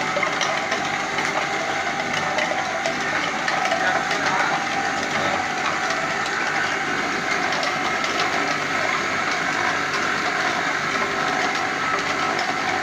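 Gelondong drum mill for grinding gold ore running steadily, with a dense, continuous rattle of ore and grinding media tumbling inside the turning drum over a machine hum.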